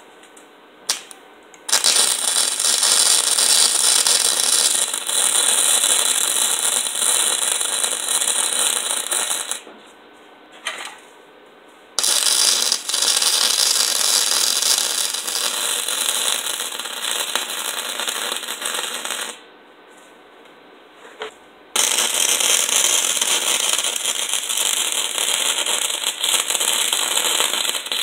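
Electric arc welding crackling in three long runs of about seven to eight seconds each. Short gaps and brief pops come between the runs as a broken shift lever is welded.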